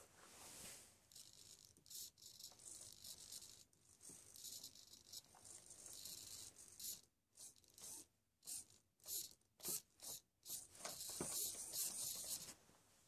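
Small hobby servos of a homemade FPV camera pan-and-tilt mount whirring faintly in stop-start bursts as they swing the camera, with a run of short quick movements about two a second in the second half and a longer sweep near the end.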